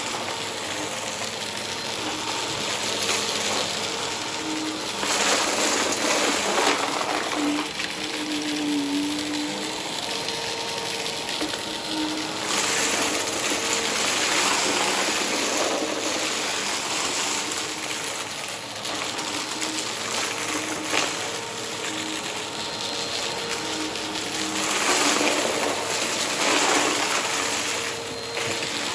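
Vacuum cleaner running: a steady rush of air with a motor hum, swelling louder three times, about five, twelve and twenty-five seconds in, as it is pushed through its passes.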